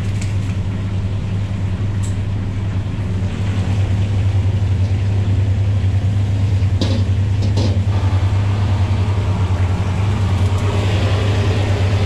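A steady low hum under the rushing of a gas wok burner. Two metal clanks come about seven seconds in as a carbon-steel wok is set over the burner. Near the end the flame flares with a brighter hiss.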